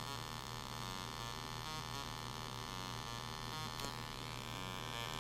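Arduino-based Auduino granular synthesizer giving a steady, buzzy electronic tone that flutters in a fast repeating pattern, its pitch stepped by MIDI notes from a drum-machine pattern instead of by its pitch knob.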